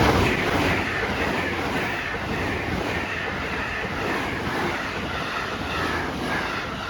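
A train passing close by: a loud, steady rush and rumble of wheels on rail, easing off slowly.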